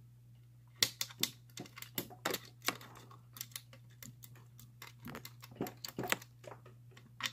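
Irregular metallic clicks and light scrapes of homemade lock-picking tools, a bolt tensioner and overlifter bent from bicycle spokes, working inside a five-lever lock as the tensioner is repositioned against the bolt. A low steady hum runs underneath.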